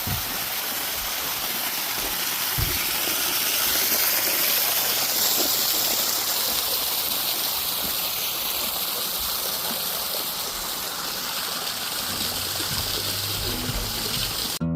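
Flowing water rushing steadily, like a stream or water pouring into a pool.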